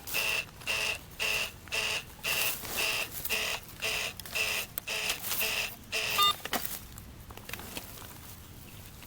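Metal detector beeping repeatedly, about two and a half beeps a second, over a target in the hole: the signal of buried metal still there. The beeping stops about six seconds in with a brief different chirp.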